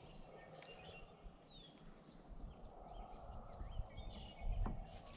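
Faint outdoor ambience with distant birds giving short chirps and whistles, and a single soft knock near the end.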